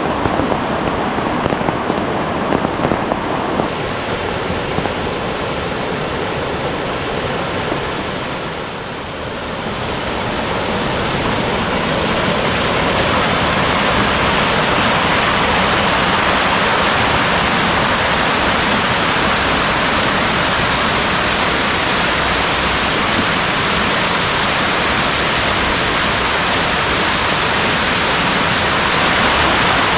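Steady rush of a mountain valley stream and its cascades, the water noise growing fuller after a brief dip about nine seconds in. Over the first few seconds, rain patters with small sharp taps.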